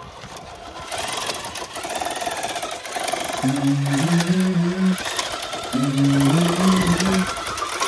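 Song intro: a dense buzzing rhythm that grows louder, joined about three and a half seconds in by a low synth riff that repeats about every two seconds.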